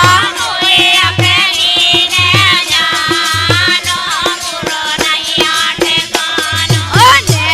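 Indian folk song music: a wavering, vibrato-laden melody line over a steady hand-drum beat with deep strokes about once a second.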